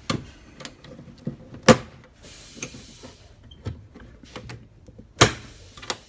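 Knocks and clicks of a hand handling the plastic enclosure of a valve control panel: one sharp knock at the start, the loudest just under two seconds in, another about five seconds in, with softer clicks between.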